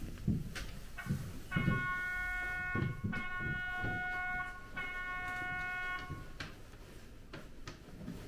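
An electric horn sounds three long, steady blasts in a row, each about a second and a half. Low thuds run underneath throughout.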